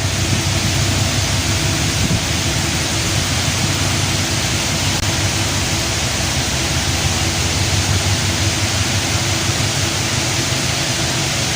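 Steady vehicle running noise: a low, even engine hum under a broad hiss of road or wind noise.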